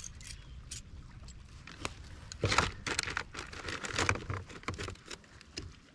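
Irregular knocks, rustling and splashy scuffling aboard a fishing kayak as a bluefish is handled and brought in. The sounds are densest from about two seconds in and thin out near the end.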